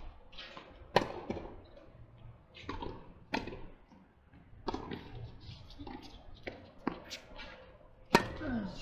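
Tennis balls struck by rackets and bouncing on a hard court during a doubles rally: a run of sharp pops at uneven intervals, the loudest near the end as the nearest player hits the ball.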